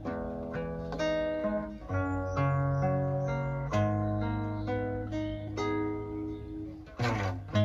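Background music: an acoustic guitar playing plucked notes that ring and decay, with a quick strummed chord about seven seconds in.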